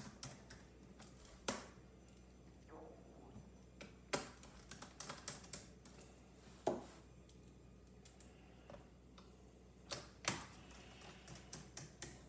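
Irregular light clicks and taps of a small Phillips (P0) screwdriver and tiny screws against a Chromebook's plastic bottom case as the screws are driven back in, with a few sharper clicks spread through.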